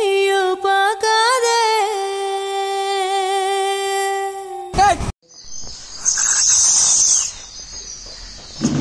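One long held musical note with many overtones, wavering in pitch for its first second or so, then steady, breaking off with a short slide about five seconds in. After it comes a few seconds of quieter hiss.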